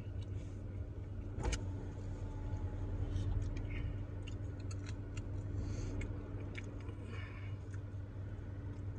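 Steady low hum of a car's idling engine heard inside the cabin, with scattered small clicks and rustles and one sharp click about a second and a half in.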